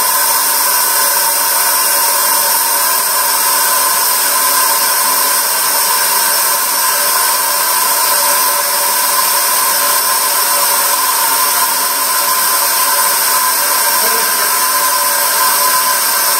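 Compressed air hissing steadily into a hyperbaric recompression chamber as it is pressurised during the descent of a 50-metre dry dive, a loud even rush with a faint steady whine in it.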